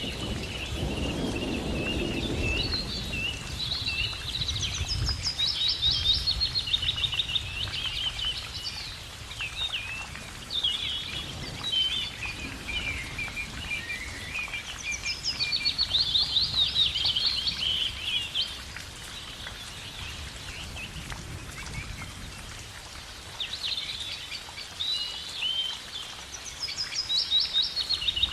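Several birds singing over each other, with quick trills and chirps that come and go through the whole stretch, over a low rumble in the first few seconds.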